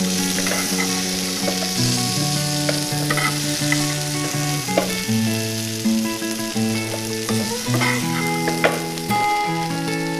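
Oil sizzling in a frying pan while fried slices are scooped out with a metal spoon, with a few clinks of the spoon against the pan. Background music with a slow melody plays throughout.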